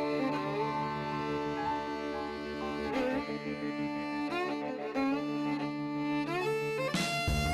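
Background music: sustained bowed string notes, like violin and cello, changing pitch every second or so, with a shift in the music near the end.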